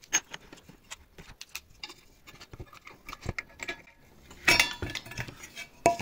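Small clicks and taps of metal tools and parts being handled, then a louder metallic clatter with brief ringing about four and a half seconds in as the vacuum cleaner motor's sheet-metal fan cover is worked off.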